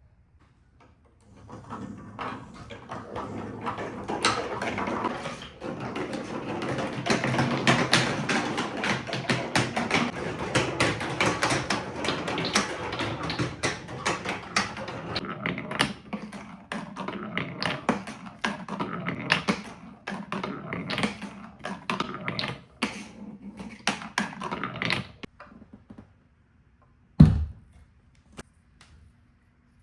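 Many marbles rolling and clattering down a plastic TrixTrack marble run: a dense rattle of clicks that starts about a second in, grows busy, then thins out and stops a few seconds before the end. Near the end comes one loud knock, followed by a few faint ticks.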